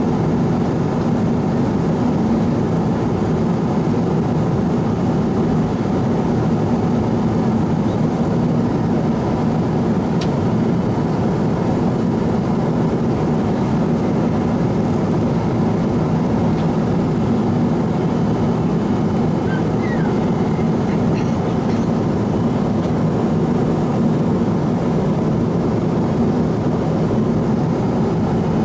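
Cabin noise of a Boeing 777-300ER with GE90-115B engines in cruise, heard from a window seat over the wing: a steady, even low drone of airflow and engines.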